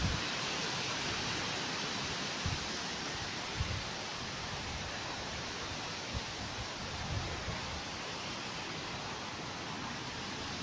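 Steady rushing outdoor noise with a few short low thumps of wind buffeting the microphone.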